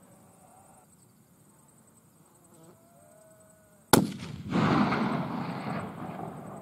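A single rifle shot about four seconds in: one sharp crack, followed by about two seconds of echo that swells and then fades.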